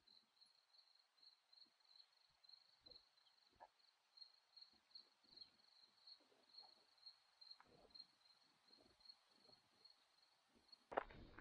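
Faint, steady chirping of an insect: one high note pulsing about three to four times a second. Footsteps start near the end.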